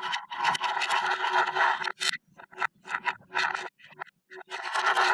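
Hands working a heap of 5 mm neodymium magnetic balls and slime, making scraping, rattling noise in several bursts of uneven length with short pauses between them.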